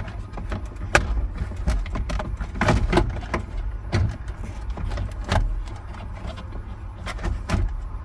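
Irregular clicks and knocks of tools and parts being handled as a van door is bolted back together, over a steady low rumble.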